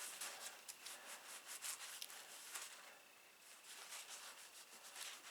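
Faint rubbing of a pocketknife's steel blade being polished by hand, in quick, even back-and-forth strokes that break off briefly about three seconds in and then resume.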